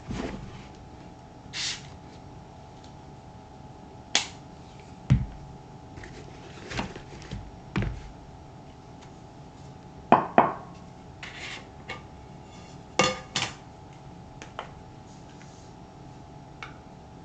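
Shoe-care tools and containers being handled and set down on a work surface: scattered clicks, taps and knocks, the loudest a quick pair about ten seconds in, over a faint steady hum.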